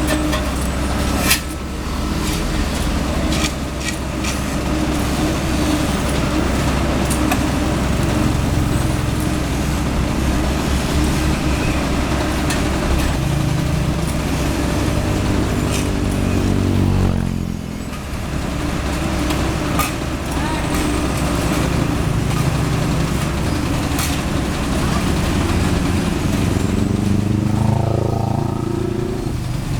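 Diesel engines of an asphalt paver and dump truck running, with scattered clanks and knocks. An engine's pitch falls about halfway through, and climbs again near the end.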